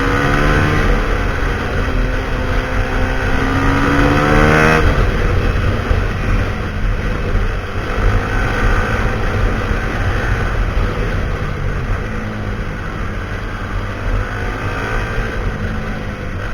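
Husqvarna SMR 511 supermoto's single-cylinder engine through a full Akrapovic exhaust, loud, revving up in a steady rising pitch for about five seconds, then dropping back sharply and running on under varying throttle.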